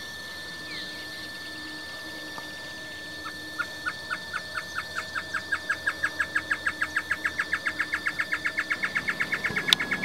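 Pearly-vented tody-tyrant (mosqueta ojo dorado) singing: a series of short, sharp notes begins about three seconds in, speeding up and growing louder into a fast run. A faint steady thin high tone sounds underneath.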